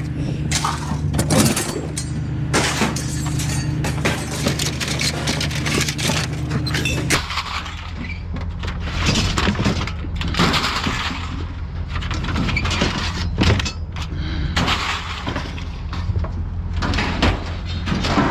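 Steel store shelving and brackets being thrown off a truck onto a pile: a string of irregular metal crashes and clangs over a low steady engine hum.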